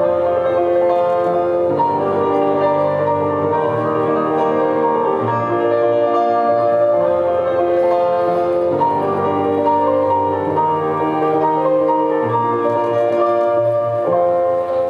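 Instrumental program music for a figure skating routine: a slow melody of held notes over a sustained accompaniment.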